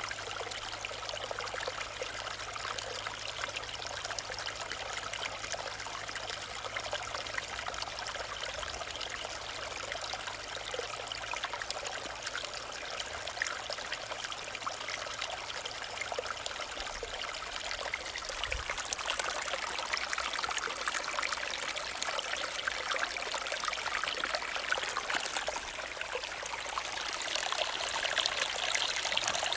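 Stream gurgling and trickling steadily, a little louder in the last third.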